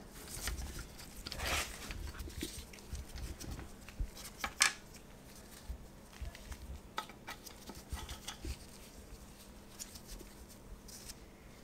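Scattered light metallic clinks and rattles of hand tools and bolts being handled during an engine teardown, with one sharper clink about four and a half seconds in.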